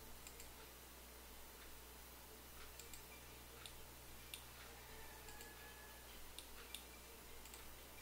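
Faint, irregular computer mouse clicks over a low steady hum.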